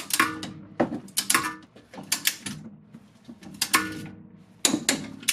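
A ratcheting wrench clicking in short bursts, about one stroke a second, with a metallic ring, as the 14 mm upper damper-fork bolt on a front strut is tightened.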